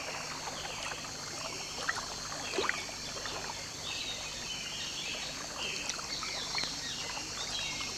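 Swamp field ambience: a steady high insect buzz with scattered short bird chirps and faint water sounds, over a low steady hum.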